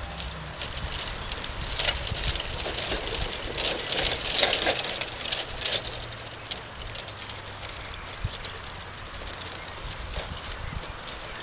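Garden-railway model train running on outdoor track: its wheels click and rattle over the rail joints over a low, steady motor hum. The rattling is densest about four seconds in and then eases.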